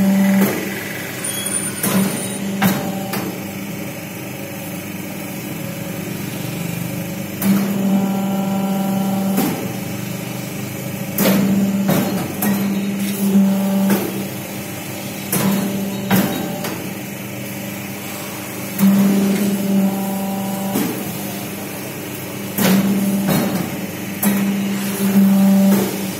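Two-die paper plate making machine running: a steady motor hum that swells for a couple of seconds at a time as the dies press, with repeated sharp clacks and knocks from the dies and the plates being handled.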